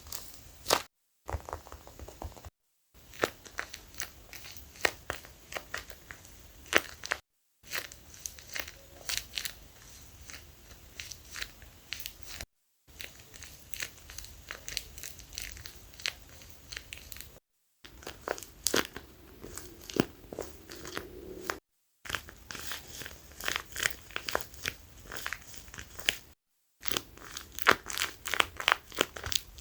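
Plastic packaging crinkling and crackling as it is handled, in a dense run of irregular crackles, broken by about six short silent gaps.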